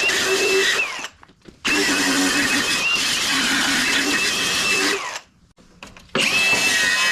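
Electric power tool, most likely an angle grinder, grinding the steel mower deck clean to prepare it for welding. The motor whine wavers in pitch as the tool is pressed into the metal. The sound cuts out suddenly twice, about a second in and again about five seconds in, each time for half a second to a second.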